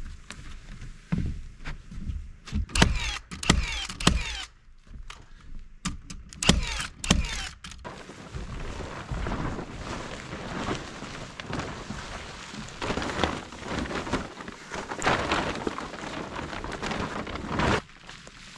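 A string of knocks and thuds as OSB subfloor panels are dropped and tapped into place, followed from about halfway in by plastic tarp rustling and crinkling in waves as it is dragged and spread over the floor.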